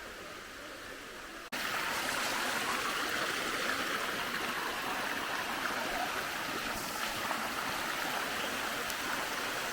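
Water of a waterfall rushing and splashing down its cascades, a steady hiss that jumps suddenly louder about a second and a half in.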